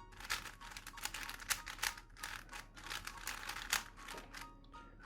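QiYi Valk 4 M magnetic 4x4 speedcube being turned quickly by hand: a fast, irregular run of plastic clicks and clacks as its layers are turned and snap into place.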